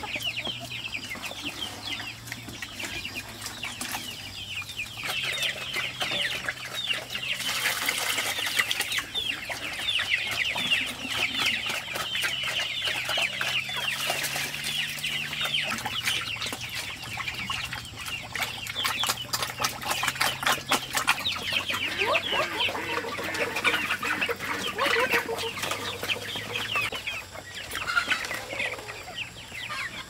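A flock of chickens calling: many short, high calls overlapping without pause, with scattered sharp clicks among them.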